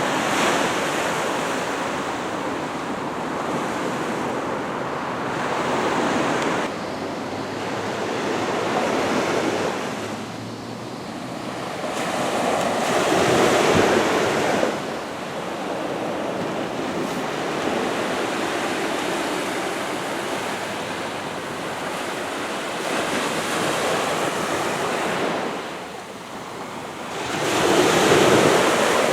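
Small waves breaking and washing up the beach on a calm, glassy sea. The rushing wash swells and fades every few seconds and is loudest about halfway through and again near the end.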